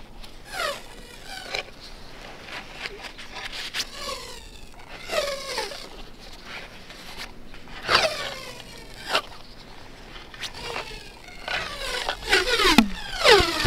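Backyard rink ice sheet cracking and 'singing': a string of short laser-like 'pew' chirps, each falling quickly in pitch, some starting with a sharp crack, with the loudest around eight seconds in and near the end.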